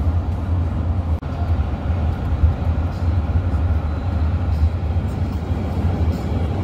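Steady low rumble of road and engine noise heard from inside a moving vehicle at highway speed, with a brief dropout about a second in.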